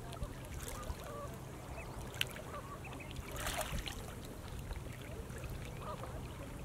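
A hen duck and her ducklings calling: short, scattered calls with one louder call about three and a half seconds in, over a low steady rumble.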